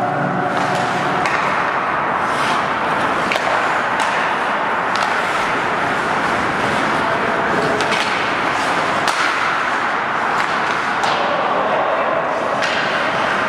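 Ice hockey play: a steady hiss of skate blades scraping the ice, with sharp clacks from sticks hitting the puck every second or two.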